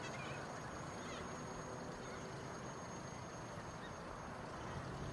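Two faint bird calls, about a third of a second and a second in, over a steady outdoor hiss with a thin high-pitched whine running under it.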